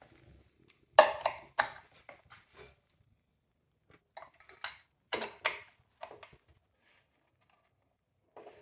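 Sharp clicks and clatters of small hard parts being picked up, handled and set down, bunched about a second in and again around five seconds in.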